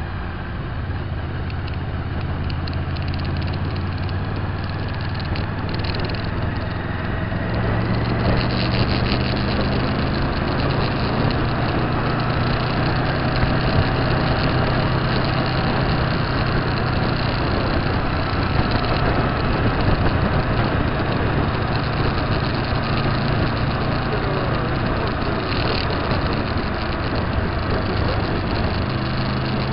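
Motorcycle engine running at road speed, with wind rushing over the microphone. The engine note and the wind grow louder about eight seconds in as it speeds up.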